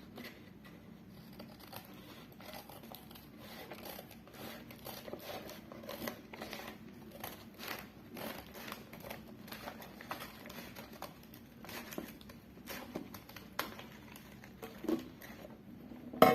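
A dot mandala rocks kit's packaging being opened by hand: irregular crinkling, rustling and tearing of plastic and paper, with small clicks and a few louder knocks near the end.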